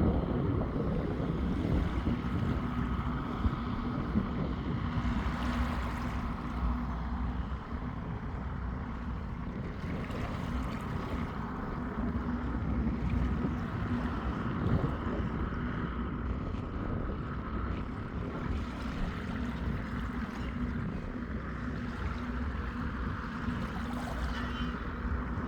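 Seaside ambience: wind buffeting the microphone over the wash of sea waves, with a faint steady hum underneath.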